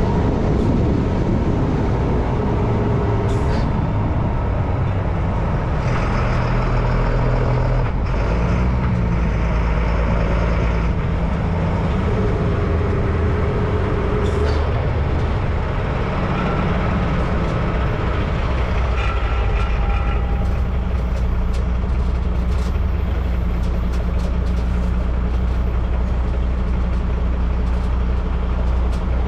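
Diesel engine of a MAN 4x4 truck running steadily as the truck drives. The engine note shifts in pitch a few times over a constant road noise.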